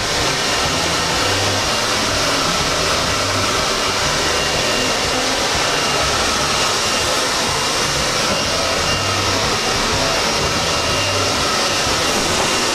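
Hair dryer running steadily at full blow.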